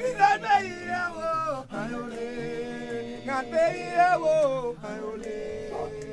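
A group of men singing a Haitian chant-style song a cappella in harmony, several voices holding long notes that slide between pitches, with a brief breath break a little under two seconds in.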